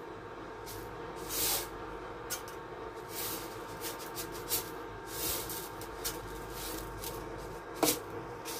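Hot cooking oil in a kadai on an induction cooktop sizzling, with short sharp crackles and pops every second or so. Near the end comes a louder crackle as mustard and fenugreek seeds go into the oil for tempering.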